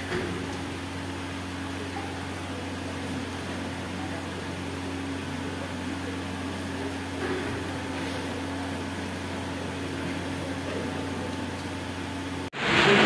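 Steady hum of a wall-mounted electric fan running, with a constant low drone under it. Just before the end it cuts abruptly to a much louder rushing noise.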